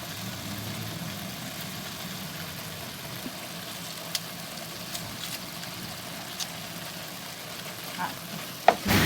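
Zucchini cores and garlic frying in oil in a pan, a steady low sizzle with a few faint utensil ticks. A louder clatter of a spoon against the pan comes near the end.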